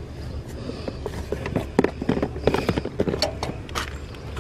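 Irregular knocks, clunks and rustling of discarded items being handled and shifted around in a dumpster, over a low steady hum.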